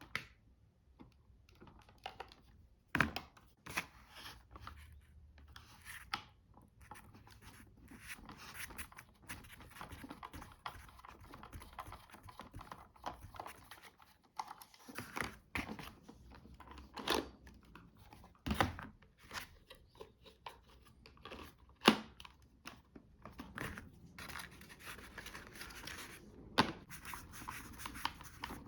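Hands handling small plastic vacuum-cleaner parts: irregular clicks and knocks with scraping and rustling in between.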